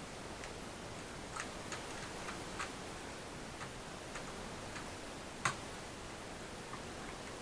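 Scattered light clicks and taps of small laptop parts and tools being handled, irregularly spaced over a steady hiss, with one sharper click about five and a half seconds in.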